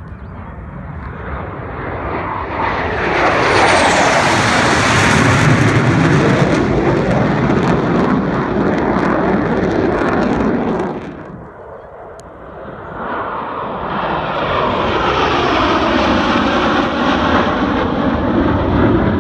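Jet engine noise from the USAF Thunderbirds' F-16 Fighting Falcons flying past in formation. The noise swells a few seconds in with a sweeping whoosh, fades around the middle, then builds again as the jets make another pass near the end.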